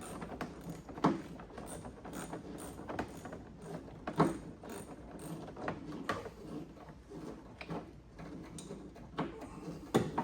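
Hand ratchet clicking in short runs as bolts are worked loose, with several sharper knocks of the tool against metal.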